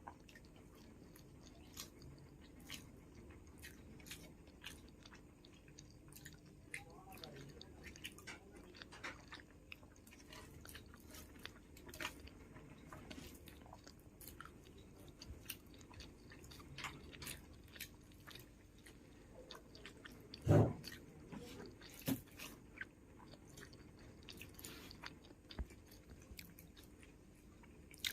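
Close-up chewing and mouth sounds of a person eating, with frequent small clicks and smacks. One louder, short sound stands out about two-thirds of the way through.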